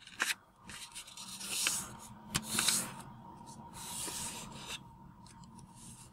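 Sheet of 15 cm origami paper being folded in half and the crease pressed flat with fingertips against a tabletop: several bouts of paper rubbing and rustling, the loudest with a sharp crackle about two and a half seconds in.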